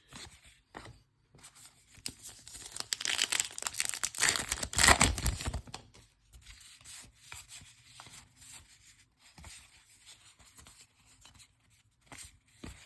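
Wrapper of a pack of baseball cards being torn open, with a crinkly tearing sound for a few seconds, loudest about five seconds in. After that comes quieter rustling and sliding as the cards are handled.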